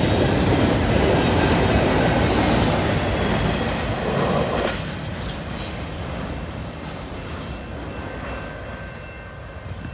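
Steel wheels of double-stack intermodal well cars rolling and clattering over the rails on a curve. The last car goes by about halfway through, and the sound drops sharply and fades as the train moves away.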